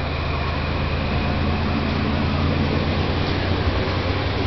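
Passenger train coaches rolling along the rails past the platform: a steady rumble with a low hum underneath.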